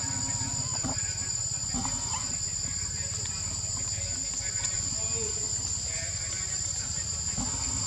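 Steady chorus of forest insects: a continuous, even high buzz at two pitches over a low rumble.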